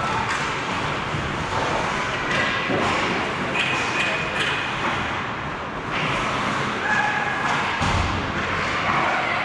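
Ice hockey game sounds: players' shouts and a few sharp knocks of sticks and puck over a steady hiss of skates and rink noise.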